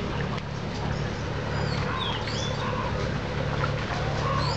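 A boat's engine runs with a steady low hum. Short high animal calls rise and fall over it about two seconds in and again near the end.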